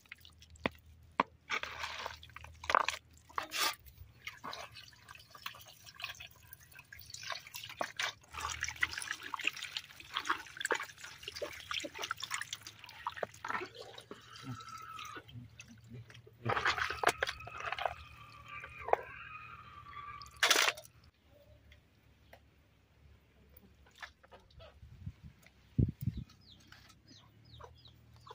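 Chopped pig-head meat being washed by hand in a bamboo basket: water poured from a steel bowl, with wet splashing, dripping and squelching of the meat pieces in a string of short sharp splashes.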